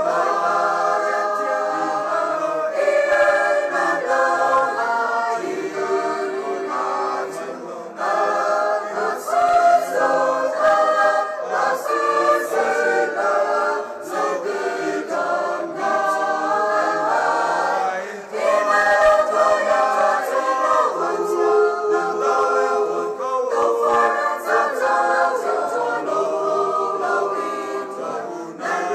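Mixed choir of women's and men's voices singing a church song together, with brief breaks between phrases about eight and eighteen seconds in.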